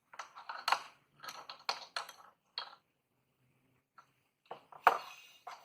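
Metal clicks and clinks from parts and tools being handled while a drill press stand is tightened. They come in uneven clusters through the first two and a half seconds, then a single tap about four seconds in. A louder knock comes near the end.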